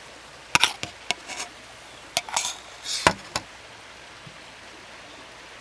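Camp cookware and utensils clinking and clattering: a handful of short, sharp knocks and rattles in the first three and a half seconds, then only a faint steady hiss.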